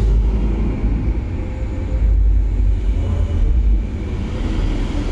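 Deep rumble of a simulated high-speed ride soundtrack played through the speakers of an immersive projection theatre, swelling twice and loudest for a couple of seconds in the middle before easing.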